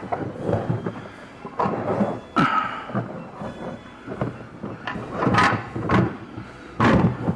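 Irregular knocks and scrapes from hands-on work on a motorcycle, about six of them, each lasting up to a second.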